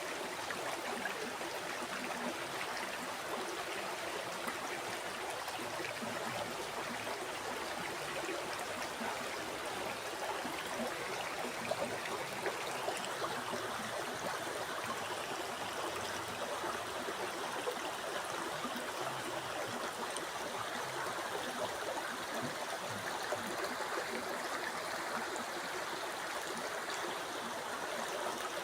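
River water flowing steadily over stones, a continuous rushing babble with small splashes and gurgles throughout.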